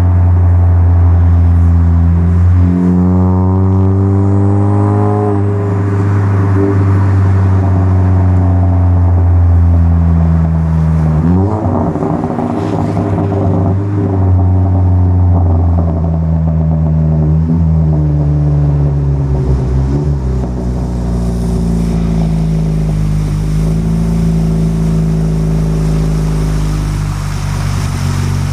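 Chevy Cruze engine pulling under acceleration, its pitch climbing slowly and dropping at each upshift, about four times.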